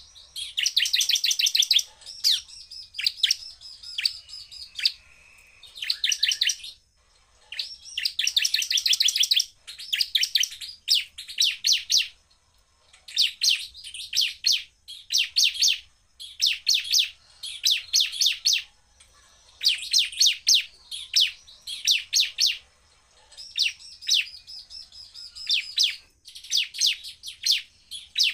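Bar-winged prinia (ciblek) singing in fast, loud bursts of rapid high trills, each a second or two long, repeated with short pauses. A few bursts run into a held high note.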